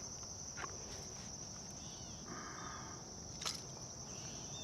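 Steady high-pitched insect chorus in the background, with a sharp click about three and a half seconds in and a few faint short chirps.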